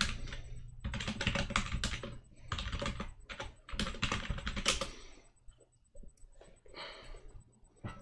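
Typing on a computer keyboard: quick runs of keystrokes for about five seconds, then a few scattered keystrokes.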